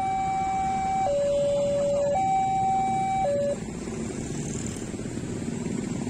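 Railway level-crossing warning siren sounding a two-tone alternating signal, high and low notes about a second each. It cuts off about three and a half seconds in, once the train has cleared the crossing, leaving a steady low rumble.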